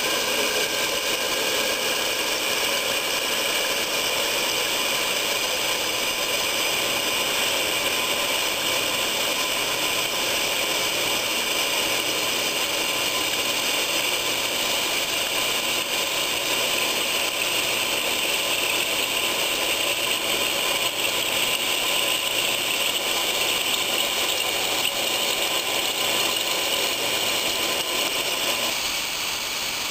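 Open-bowl oil centrifuge with a feed-cone bowl running steadily at speed while oil is fed into its cone: an even, unchanging mechanical running noise.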